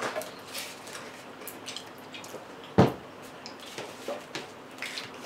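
Close-miked eating sounds: wet chewing and smacking with scattered small crunches and clicks, and one louder sharp crunch about three seconds in.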